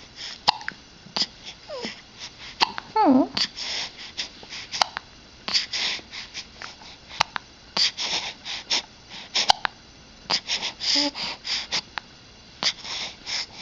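A four-week-old baby hiccuping, short sharp hiccups every two seconds or so among quick breathy snuffles, with a brief falling squeak about three seconds in.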